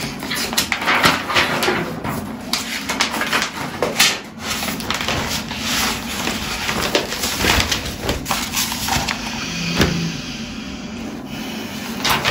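A young woman laughing hysterically while the pages of a thick spiral notebook are flipped, the paper rustling and flapping. Near the end she takes a sharp, stressed inhale.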